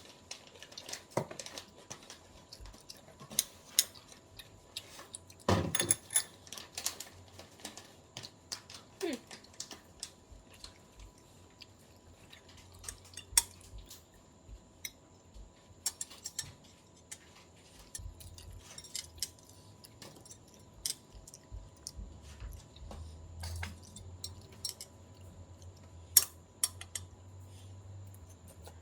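Scattered clicks and taps of eating utensils against a dish, with a louder clatter about five and a half seconds in, and chewing in between.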